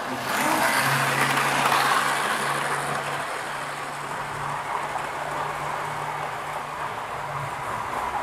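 Model train running along the layout's track: a steady low electric-motor hum under a rushing rattle of wheels on rail, which swells about half a second in and then slowly fades.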